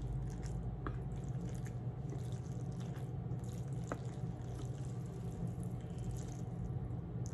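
Sauce-coated noodles squishing softly as a wooden fork stirs and lifts them, with a couple of light clicks of the fork against the plate, about a second in and about four seconds in. A steady low hum runs underneath.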